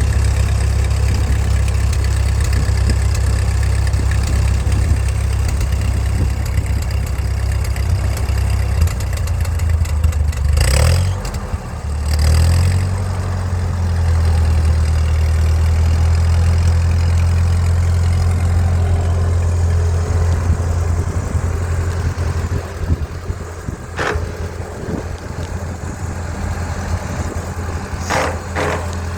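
Ford 8N tractor's four-cylinder engine running steadily. About eleven seconds in, its note dips briefly and picks up again, and a few sharp clicks come near the end.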